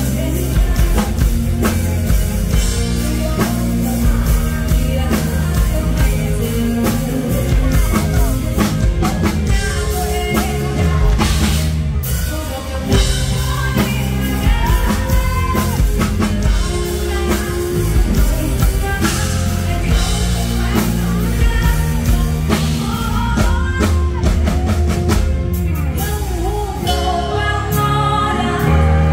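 Female vocalist singing live over a full band with a drum kit keeping a steady beat.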